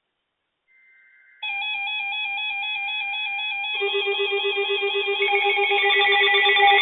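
NOAA Weather Radio alert receivers going off: after a faint high tone, a loud warbling alarm that steps between two pitches starts about a second and a half in. A second receiver's lower, rapidly pulsing alarm joins about four seconds in and further tones pile on, so the sound gets louder in steps. The alarms signal an incoming severe thunderstorm warning.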